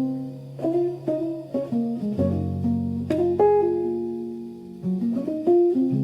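Background music: plucked guitar notes over held low bass notes, a new note struck every half second to a second.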